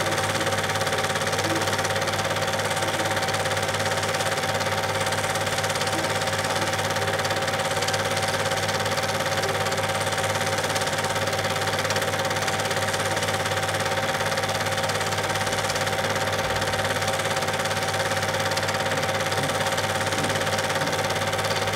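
Super 8 film projector running: a steady mechanical whir with a constant hum and a faint whine, unchanging throughout.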